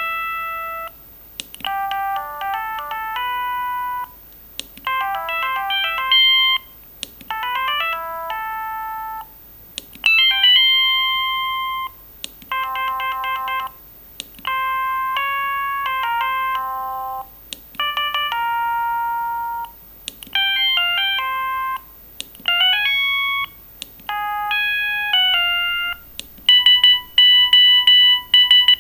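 Siemens A55 mobile phone playing its ringtones: short electronic melodies of clean beeping notes, phrase after phrase with brief pauses between. Near the end it changes to a louder run of rapid repeated beeps, about three a second.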